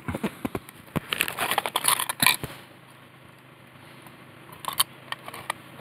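Small clear plastic containers of metal rivets being handled: scattered clicks and plastic crinkling, busiest in the first two seconds, quieter in the middle, with a few more clicks near the end.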